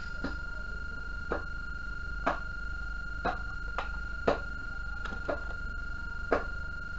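A steady high-pitched electronic tone over a low mains hum, with a short chirp falling in pitch about once a second.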